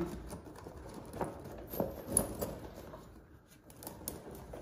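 Steel tire chains on a lawn tractor's rear tire clinking as they are handled: a few scattered light clicks.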